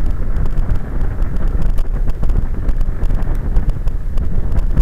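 Wind buffeting the microphone of a camera mounted on a velomobile riding along a road: a loud, rough, steady rumble with scattered faint clicks.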